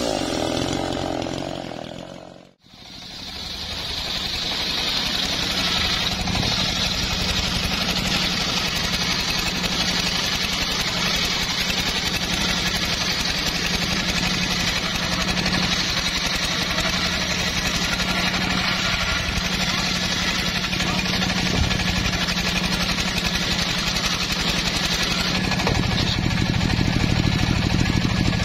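A Maestro MT6500L two-stroke chainsaw runs for about two seconds and then fades out sharply. After that, a homemade circular saw bench runs steadily with a low hum while its spinning blade rips a teak log lengthwise.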